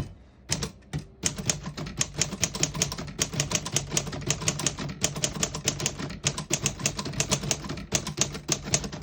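1936 Corona Standard manual typewriter being typed on: a few separate key strikes, then about a second in a fast, continuous run of typebars striking the platen, several a second, as a sentence is typed.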